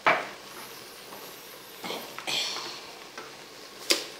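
A utensil knocking and scraping against a metal cooking pot: a sharp knock at the start, a scrape about two seconds in, and another clink near the end. A faint steady bubbling from the pot runs underneath.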